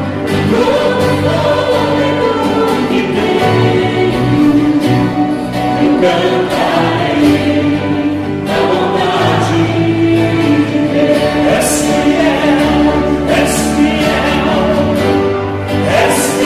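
Live Portuguese worship song: a man sings the lead into a microphone over a band of grand piano, drums, bass and guitars, with other voices singing along. Cymbals crash a few times in the second half.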